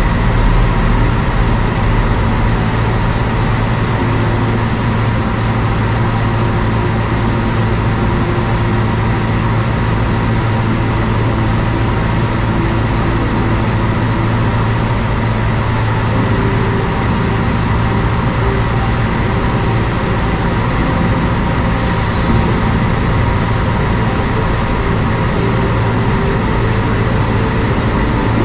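Carbureted piston engine and propeller of a single-engine light airplane droning steadily in cruise flight, heard from inside the cockpit.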